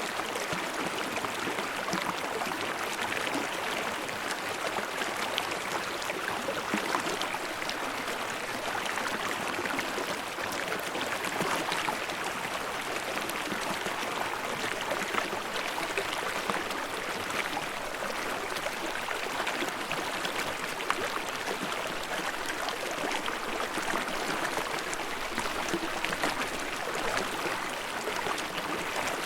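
Stream water flowing and babbling, a steady rush with fine splashing throughout.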